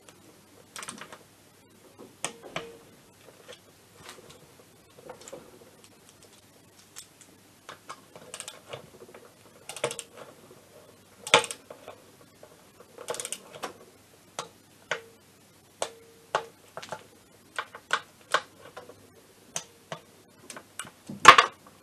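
Hand ratchet clicking in short, irregular runs as bolts are turned into an aluminium scooter engine casing, with scattered single metallic clicks; the sharpest click comes about halfway through.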